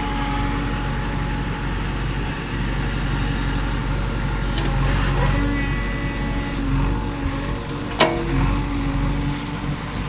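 A diesel engine of the earth-moving machinery runs steadily at low speed, with one sharp metallic knock about eight seconds in.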